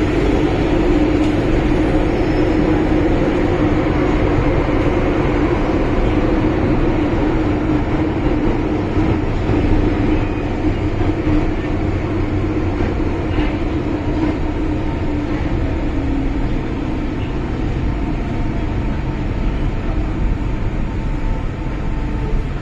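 Interior running noise of an MTR M-Train in a tunnel: a steady rumble of wheels on rail with a strong hum, easing a little near the end as the train slows into a station.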